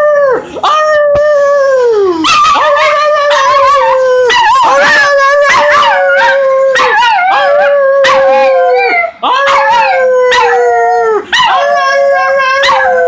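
Jack Russell terrier howling: about six long held howls in a row, each falling in pitch as it trails off, with a few short yips between them.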